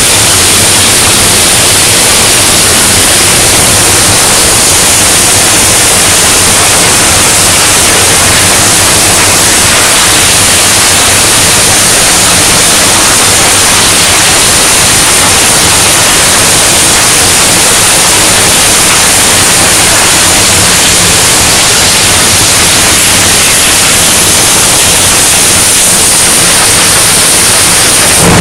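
Loud, steady industrial hiss with a faint low hum underneath, the continuous machinery noise of a steel fabrication shop.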